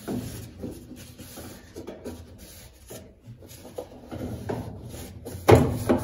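Folded paper towel rubbing and scraping along the plastic upper rim of an Electrolux top-loading washing machine's tub, with light plastic knocks as the hand pushes it into the gap. A louder scuff comes about five and a half seconds in.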